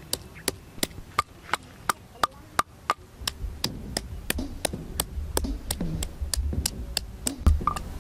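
Wooden pestle pounding wet chili paste in a wooden mortar: repeated sharp wooden knocks about three a second, with heavier dull thuds joining about three seconds in.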